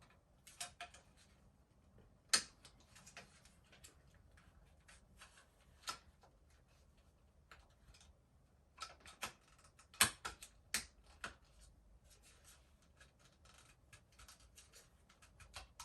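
Scattered plastic clicks and knocks from the two parts of a Shark handheld vacuum's charging base being lined up and fitted together, with a cluster of sharper snaps about nine to eleven seconds in.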